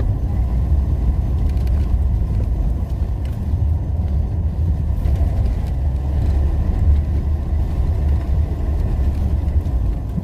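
Steady low rumble of a Talbot Talisman motorhome driving on the road, with engine and road noise heard from inside the cab.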